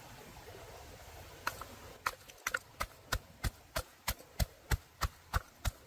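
Wooden pestle pounding red chilies and garlic in a wooden mortar: a steady run of knocks, about three a second, starting about two seconds in.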